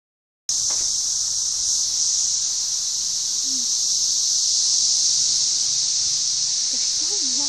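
A chorus of cicadas in the trees: one continuous, very loud, high-pitched buzzing drone that does not let up.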